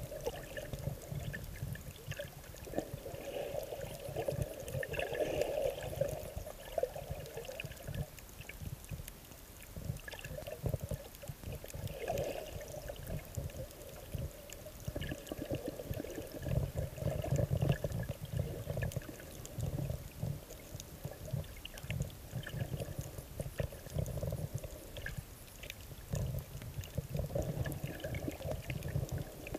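Water noise picked up by a camera held underwater: muffled sloshing and gurgling that swells and fades every few seconds, over a low rumble, with scattered faint clicks.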